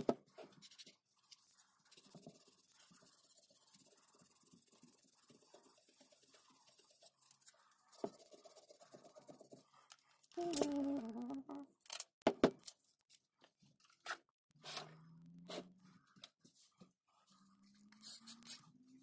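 Silver duct tape being handled and pressed onto a metal corner clamp: rustling and crinkling, with a few short sharp clicks.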